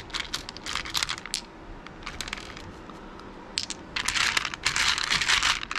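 Resin beads clicking and clattering against each other as a hand rummages through a plastic basket full of them: a few separate clicks at first, then a dense clatter from about three and a half seconds in as the hand digs into the pile.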